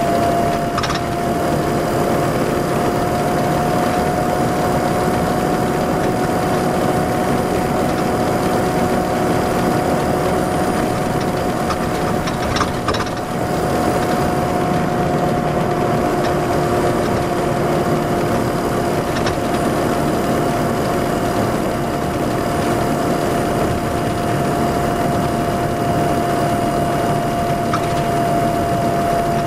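Detroit Diesel Series 60 inline-six diesel of an MCI D4500 coach idling steadily, with a steady high whine held over the engine note.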